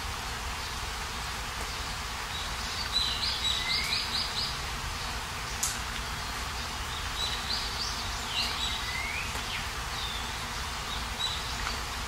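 Steady hiss of falling rain with birds chirping over it: a quick run of chirps about three seconds in, and more calls with rising sweeps a few seconds later.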